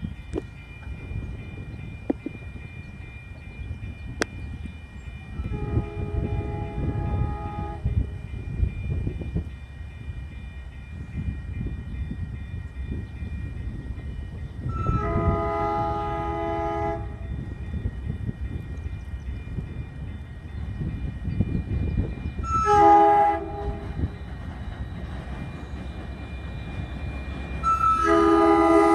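MBTA commuter rail train sounding its horn for the grade crossing as it approaches: two long blasts, a short one, then a long one, the last loudest as the train draws near. A steady high ringing from the crossing signal runs underneath.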